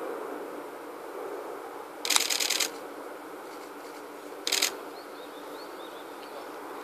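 Camera shutters firing in rapid bursts: a longer run about two seconds in and a shorter one about two seconds later, over a steady outdoor background hum.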